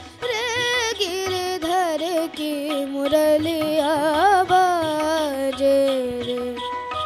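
A boy singing solo into a handheld microphone, an Indian classical-style melody with quick wavering ornamented runs. It closes on a long held note that slowly falls about six and a half seconds in, over a faint low beat.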